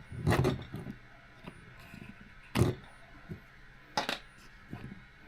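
Clicks and knocks of small parts being handled and fitted by hand while a 1/18-scale RC car's rear end is worked on. There are a few separate knocks, the loudest about half a second in and about halfway through.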